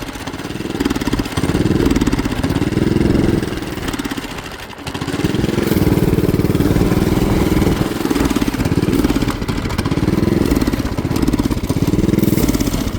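Motorbike engine blipped up and down over and over, each rev rising and falling back without picking up, with a brief drop about five seconds in. It is bogging on the throttle, which the rider puts down to an air filter packed with snow.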